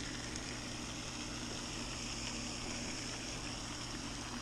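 Steady rushing water with a constant low hum, typical of a pond fountain aerator running.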